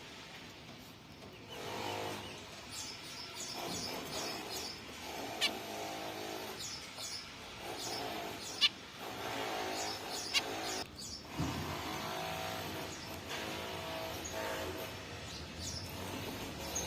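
Zebra finches calling: repeated buzzy calls of about a second each, mixed with short high chirps and a few sharp ticks, the loudest about eight and a half seconds in.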